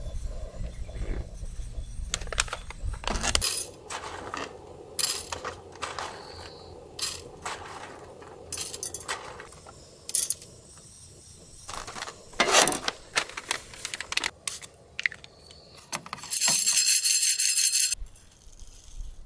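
Whole coffee beans spooned from a paper bag into a small metal bowl on a scale: the bag rustles and the beans click and rattle into the bowl. A louder, rushing rattle lasting over a second comes near the end.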